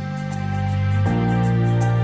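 Background music: sustained synth-like chords that change about a second in, over a steady high ticking beat, swelling up at the start.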